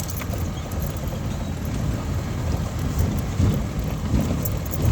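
A vehicle driving over a rough dirt road: a steady low rumble with scattered knocks and rattles from the bumps.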